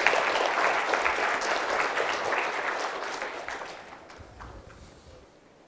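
Audience applauding, the clapping thinning out and dying away over the last two seconds.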